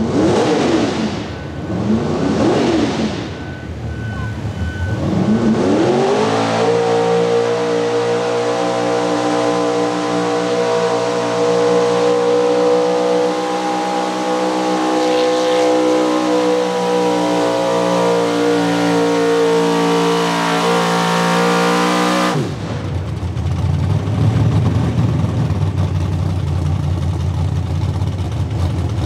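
Small-block V8 of a 4x4 pulling truck blipped twice, then run up and held at a steady high pitch for about sixteen seconds while dragging a 40,000-pound weighted sled. The note cuts off suddenly, and a lower, rougher engine rumble follows.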